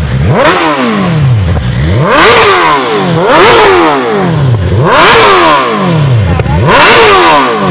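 A superbike's engine revved in five quick throttle blips, each rising fast and falling back slowly to idle, with a loud exhaust note at each peak.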